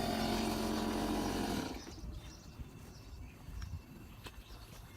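A motor runs with a steady hum and stops about two seconds in. Quiet background with a few faint clicks follows.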